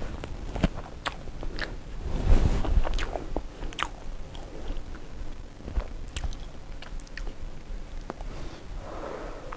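Scattered crunching, clicking and rustling, close up, from small objects being handled.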